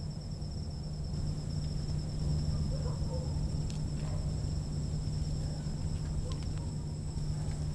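Insects, crickets, trilling steadily in two high pulsing tones, over a low steady hum.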